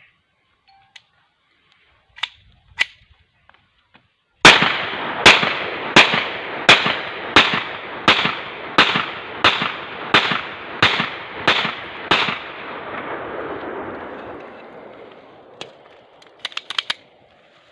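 30 bore pistol test-fired in steady semi-automatic fire: about a dozen sharp shots, roughly one every 0.7 seconds, followed by a fading echo. A few light metallic clicks come near the end.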